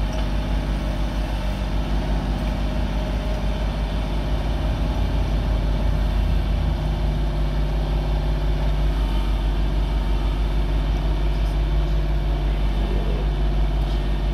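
Heavy diesel engine idling steadily, with an even low pulse.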